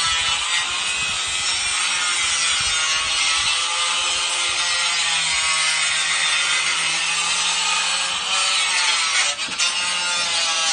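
A power saw cutting under load: a steady, loud whine over a rasping noise, its pitch sagging slightly now and then.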